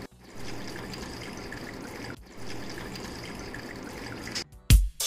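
Water trickling and dripping steadily in a small pump-fed cement waterfall fountain, cut off briefly twice. Music with a loud beat starts near the end.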